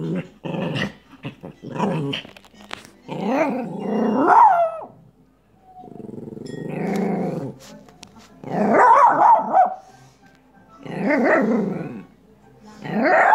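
Yorkshire terrier growling and giving short barks in repeated bouts every couple of seconds, with a longer low growl about six seconds in: a defensive reaction, the dog apparently afraid of being bitten.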